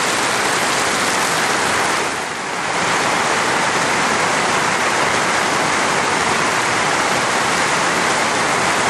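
Heavy rain with water gushing steadily out of a gutter drain. The sound dips briefly a little after two seconds in.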